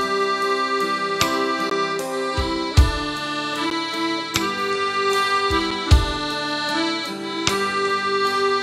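Piano accordion playing an instrumental melody over held chords, the notes changing every second or so. A deep low thump sounds about every three seconds underneath.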